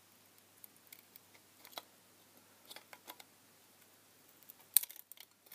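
Side cutters gripping and breaking away the thin metal base cap of an LED filament lamp: scattered small clicks and metallic crunches, with a sharp snap near the end.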